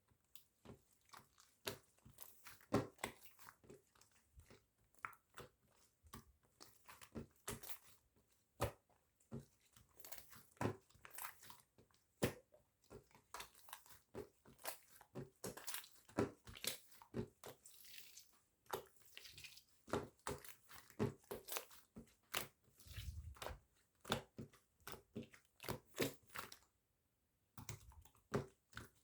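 Slime being played with, giving a continuous run of irregular crackling clicks and pops, with a brief pause near the end.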